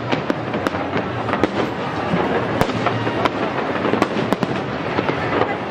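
Fireworks display: many sharp bangs and crackles in quick, irregular succession over a continuous rumbling wash, with one louder report about two and a half seconds in.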